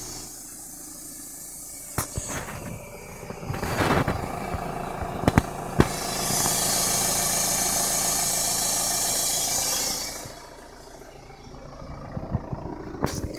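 Renault Mégane CC 1.9 dCi diesel engine idling, with a loud, steady high hiss from behind the nearside wheel arch, under the battery. The hiss comes in about six seconds in and cuts off about four seconds later; a few knocks are heard before it.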